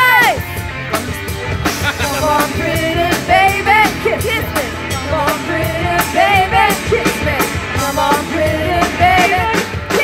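Live rock band playing: a woman singing a melody into a microphone over electric guitar and a drum kit with a steady beat.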